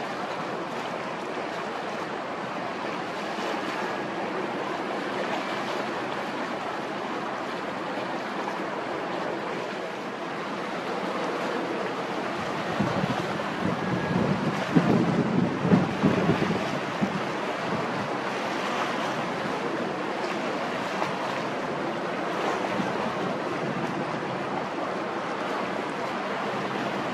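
Wind blowing across choppy harbour water with a steady wash of small waves. A stronger gust buffets the microphone from about 13 to 17 seconds in.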